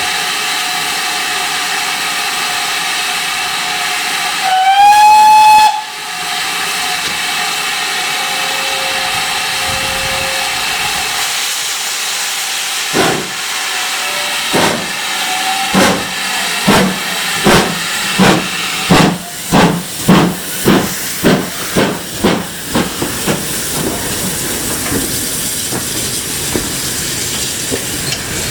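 Steam locomotive with a steady hiss of steam, sounding one short, loud whistle blast that slides up and then holds. About halfway through its exhaust starts to chuff, slowly at first, then quickening to about three beats a second as it pulls away and gathers speed.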